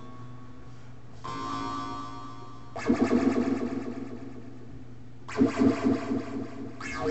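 Electronic sounds from a Max MSP retro beatbox and synth patch, picked up from the speakers by a webcam microphone, over a steady low hum. A held synth tone is followed by three louder bursts of rapidly pulsing low tones, each fading out over a second or two.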